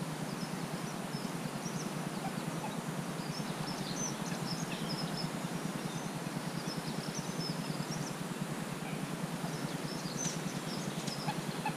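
Quiet lakeside ambience: a steady background hiss with faint, high chirps and twitters of small songbirds dotted through it.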